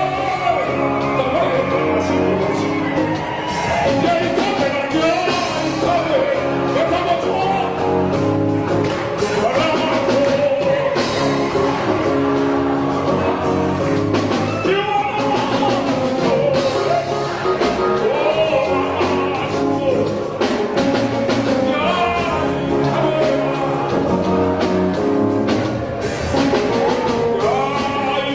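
A man singing live into a microphone, backed by a band with keyboard and electric bass guitar.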